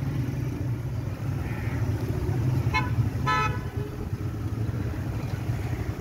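Steady low rumble of road traffic, with a vehicle horn tooting twice about three seconds in: a very short beep, then a slightly longer one.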